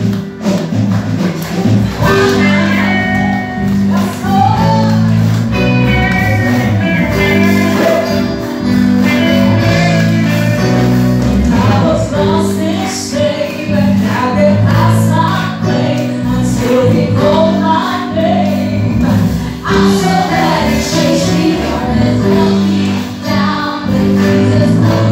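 Live worship music: a group of women singing together into microphones, backed by a band with drums and electric guitar.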